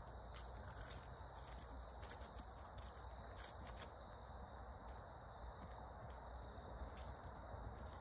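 Faint, steady high-pitched trill of crickets, with soft, irregular hoofbeats of a horse trotting on a dirt track.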